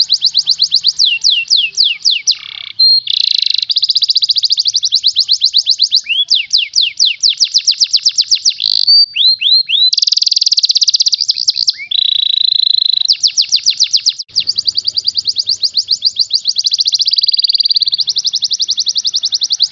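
Yellow domestic canary singing a long, fast song: rapid trills of repeated down-slurred notes, broken by a few short pauses.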